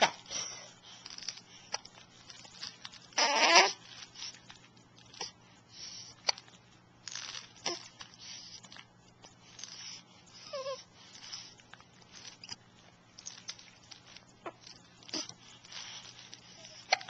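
Repeated hiccups: short, sharp hics every few seconds, the loudest about three seconds in.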